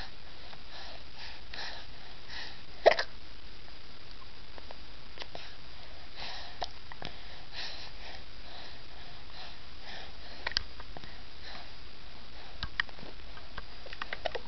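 Hiccups: one sharp, loud hiccup about three seconds in, then a few fainter clicks later on, with soft breathing sounds between.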